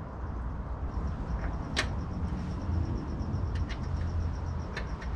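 A few light clicks and taps of a small bolt being handled and fitted by hand into a motorcycle fender mount, over a steady low rumble.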